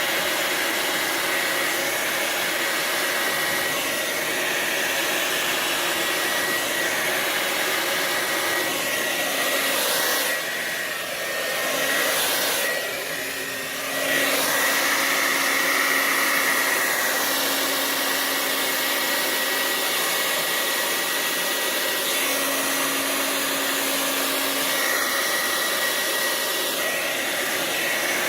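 Hand-held hair dryer blowing steadily on its cool setting at high speed, a continuous rushing whoosh with a faint whine. Its sound dips briefly about ten seconds in and again around thirteen seconds.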